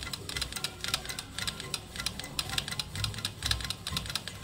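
ROHAN black straight-stitch sewing machine stitching at speed: a fast, even clicking of needle and shuttle with soft low thumps among it. The shuttle stopper has just been reset to leave a small gap, so the thread passes freely, and the machine's sound has changed with it.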